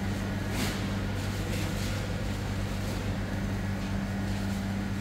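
A steady low mechanical hum with a constant pitch, with a brief rustle about half a second in.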